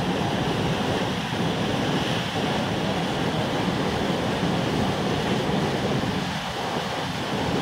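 Steady rush of white water in tidal rapids: a fast tidal current breaking over a large standing wave.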